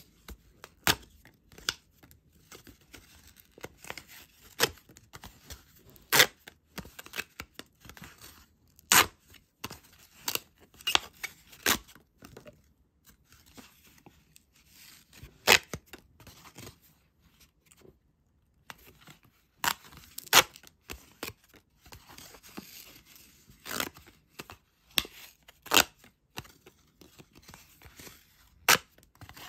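Banco scratch cards being bent and torn apart along their perforations: irregular sharp card snaps and short tears, with rustling of the handled cards in between.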